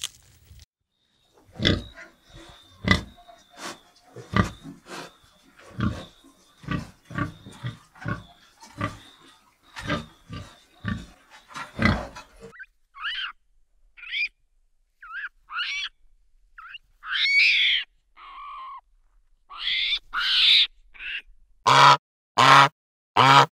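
Animal calls in three different runs: first a long series of short grunting pulses, then a string of separate high calls that slide up and down, then from about two seconds before the end a fast, even series of loud pitched calls.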